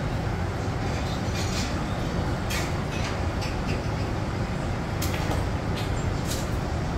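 Steady low background rumble, like distant traffic or building machinery, with a few short, sharp clicks scattered through it.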